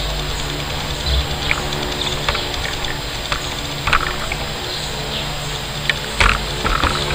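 Steady low hum and hiss of room noise, with a few short knocks and scuffs from kendo practitioners stepping on a tiled floor with wooden swords. The loudest knock comes about six seconds in.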